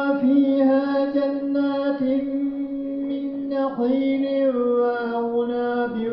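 A man reciting the Quran in Arabic, chanted in long held, ornamented notes with short breaths between phrases; the melody sinks a little lower about four seconds in.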